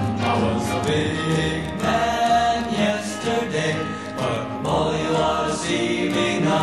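Late-1950s pop recording: a male vocal quartet singing in close harmony with orchestral backing.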